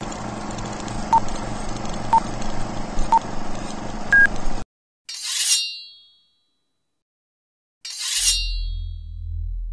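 Film-leader countdown effect: crackly old film-projector noise with a low hum and clicks, with a short beep each second and a higher final beep, cutting off sharply. Then two bright metallic 'shing' hits with a ringing tail, a blade-swish effect, the second joined by a low drone.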